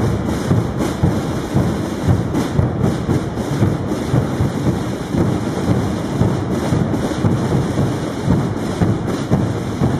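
Many procession drums and bass drums beating together at once, a dense, continuous rumbling din full of overlapping hits.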